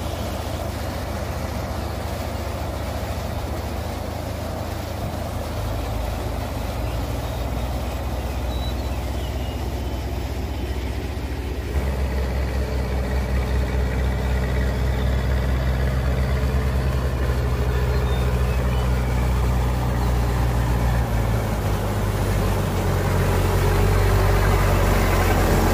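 Terex backhoe loader's diesel engine running as the machine drives through floodwater, growing louder as it approaches, with its wheels splashing through the water near the end. A steady rush of water underlies it throughout.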